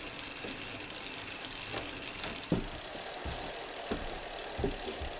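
Bicycle rear freehub ticking as the rear wheel freewheels in a repair stand: a fast, even ratcheting click from the hub pawls. A few low knocks fall in the second half.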